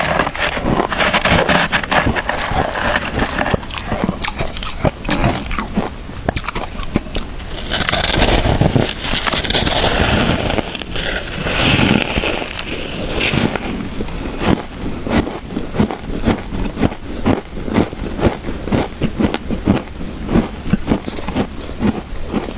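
Shaved ice being crunched and chewed close to the microphone: dense crackling crunches in the first half, then a steady rhythm of separate chewing crunches.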